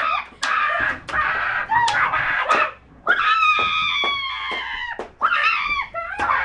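Girls screaming and yelling in a mock sword fight, several long high-pitched yells, broken by sharp clacks of toy swords striking.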